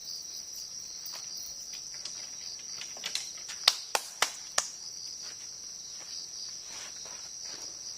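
Steady high-pitched chorus of crickets with several sharp clicks or knocks a little before the middle, the loudest about three and a half seconds in.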